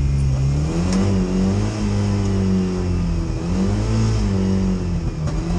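Ford Fiesta petrol engine running with Coca-Cola in the crankcase in place of motor oil. It is held on the throttle: revs rise about half a second in, then hold up with several brief dips and recoveries, making strange sounds.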